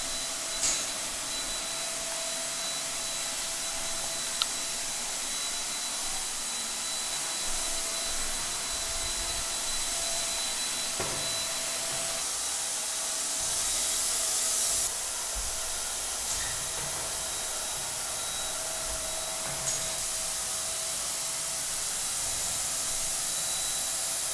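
Electric paint sprayer running steadily as paint is sprayed onto a ceiling: a continuous hiss with a faint steady tone under it, a little louder around fourteen seconds in.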